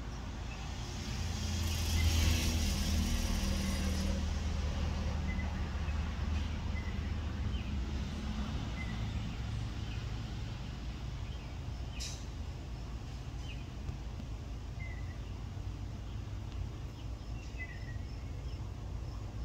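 A motor vehicle passes, its rumble and tyre hiss loudest about two seconds in and fading away over several seconds, with a sharp click about twelve seconds in and faint short high chirps.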